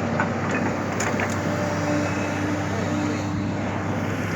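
Excavator's diesel engine running steadily, with a few light clicks in the first second or so.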